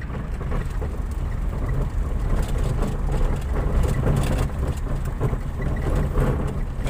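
Vehicle driving along a rough dirt road, heard from inside the cabin: a steady low engine and road rumble with scattered knocks and rattles.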